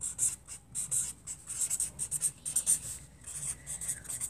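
Pencil scratching on paper in quick, irregular strokes.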